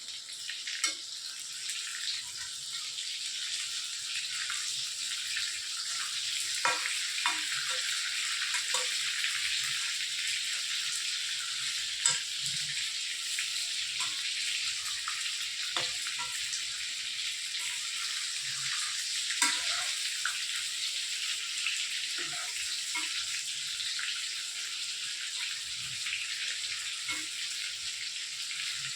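Marinated chicken 65 pieces frying in hot oil in a kadai: a steady sizzle with a few sharp pops and crackles now and then.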